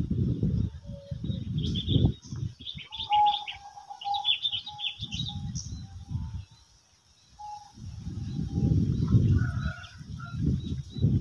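Small birds chirping in quick high bursts, with a thinner steady call held for a few seconds in the middle. Gusts of wind buffet the microphone in repeated low rumbles, the loudest sound, fading out briefly in the middle.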